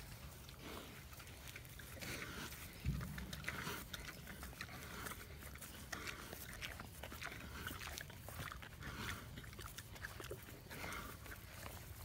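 Domestic pig grazing with its snout in the grass: short snuffling and chewing sounds repeating every second or so. A single low thump about three seconds in is the loudest sound.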